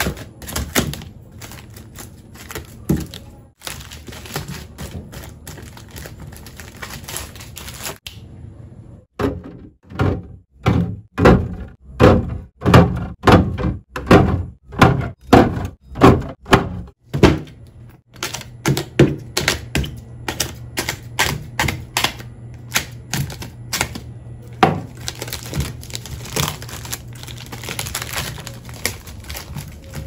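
Plastic soda bottles set one by one into a refrigerator door bin, a steady series of hollow knocks about two a second through the middle. Before and after come lighter clicks and crinkling of shrink-wrap as the bottles are handled, with a low hum in the later part.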